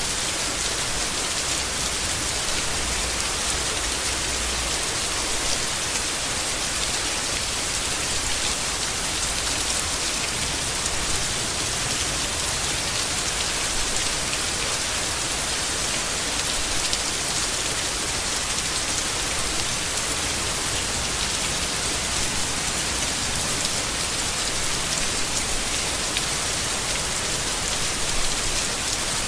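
Steady heavy rain falling on leaves, an even, unbroken hiss of drops.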